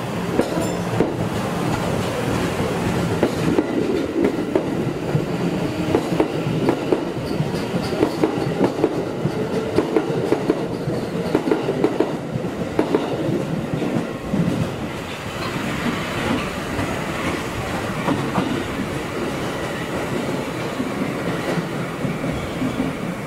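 Tokyo Metro 2000 series subway train pulling out of the station and running past, its wheels clicking over the rail joints in a quickening rhythm. The clicking dies down after about 14 s as the last car leaves, giving way to a softer steady rumble.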